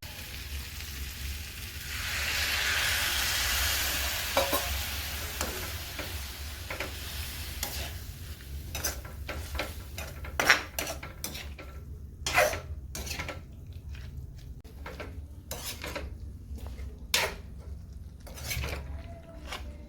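A potato and pointed-gourd (parwal) sabzi sizzling in a hot pan, the sizzle swelling louder for a couple of seconds about two seconds in. Later a spatula scrapes and clicks against the pan again and again as the sabzi is stirred.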